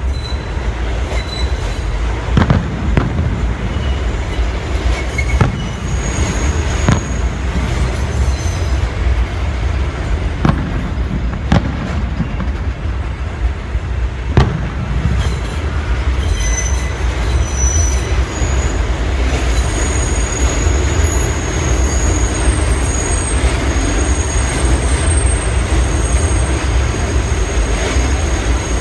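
Fireworks going off in the distance, about eight sharp bangs over the first fifteen seconds, over a steady low rumble of a subway train. From about halfway through, the train's wheels squeal in thin, high whines.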